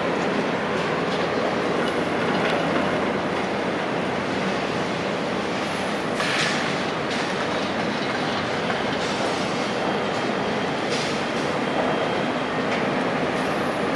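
Heavy construction machinery running steadily, with metallic clanking and squealing, and a few short hisses about halfway through and near the end.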